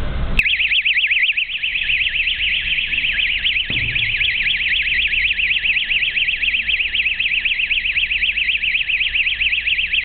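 The F-280R LED traffic baton's built-in electronic alarm switches on with a click and sounds a fast warbling siren, its pitch rising and falling about six times a second.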